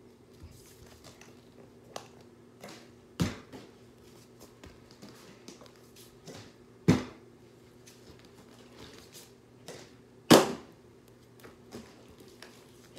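Plastic drink bottle being flipped and knocking onto a hardwood floor: three sharp knocks a few seconds apart, the last the loudest, with smaller taps between. A faint steady hum sits underneath.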